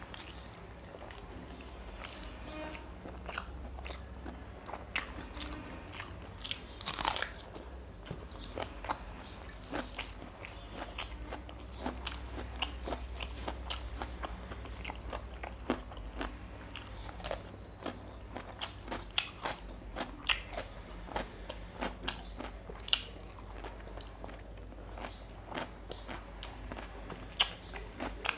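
Close-miked eating sounds of rice with mutton liver curry eaten by hand: chewing and biting, with many short, irregular sharp clicks and smacks throughout over a steady low hum.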